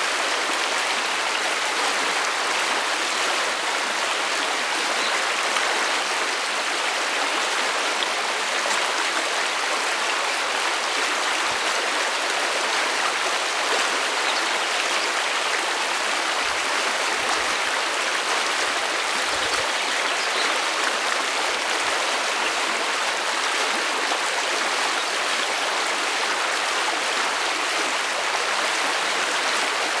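Shallow stream rushing over stones and gravel riffles: a steady, even sound of flowing water.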